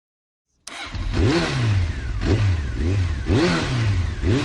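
Yamaha NMAX scooter's single-cylinder engine starting up about a second in and then being blipped over and over, its pitch rising and falling about once a second. This is the scooter brought in for a strange engine noise that was traced to a camshaft bearing missing about eight balls.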